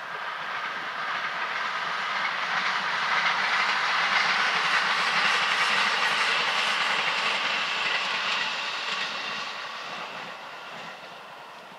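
E751-series electric multiple-unit express train passing, its steady running noise growing louder to a peak about four to six seconds in, then fading as it moves away.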